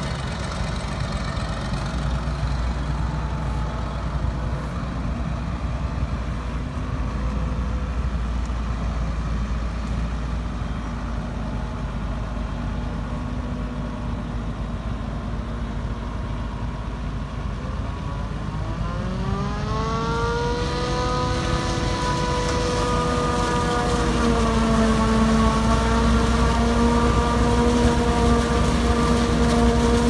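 Self-propelled forage harvester and a truck's diesel engine running in a silage-corn harvest. About two-thirds of the way in, an engine speeds up into a higher, steady whine with a clear pitch, and it holds there as the harvester chops corn and blows it into the truck.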